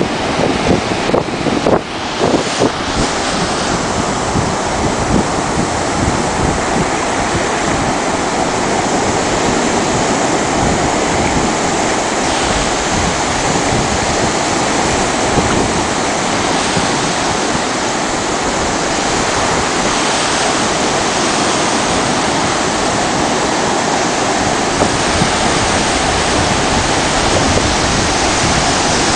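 Surf breaking on a sandy beach with wind rumbling on the microphone: a dense, steady rush, with a few knocks of wind in the first couple of seconds.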